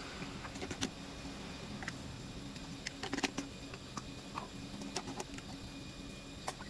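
Dry white seasoning granules poured into a clay mortar, landing as scattered light ticks with a small cluster about three seconds in, over a steady low hum.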